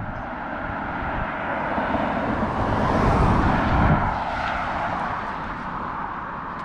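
A vehicle passing by: a noisy rumble that swells to a peak about three to four seconds in, then fades away.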